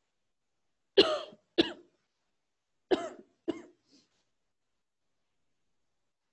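A person coughing: two double coughs about two seconds apart, each a sharp cough followed by a weaker one.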